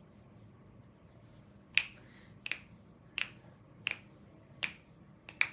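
A run of sharp finger snaps in a steady beat, about one every 0.7 seconds, starting about two seconds in and ending with a quick double snap.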